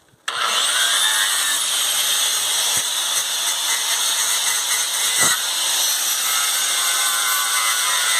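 Electric angle grinder spinning up with a brief rising whine, then running steadily as it cuts rusted sheet steel from a chest freezer's body. There is a sharp knock about five seconds in.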